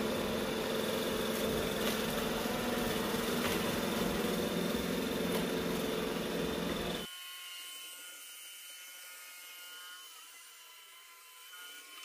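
Roomba i7 robot vacuum running steadily while edge cleaning, its motor and brushes giving a constant whir. About seven seconds in, the sound drops suddenly to a much quieter, thin whine of the Roomba s9, turned down in volume.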